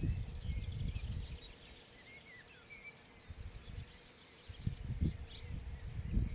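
Wind buffeting the microphone in low, irregular gusts, dying down in the middle and picking up again about two thirds of the way in, while small birds chirp and twitter in the scrub.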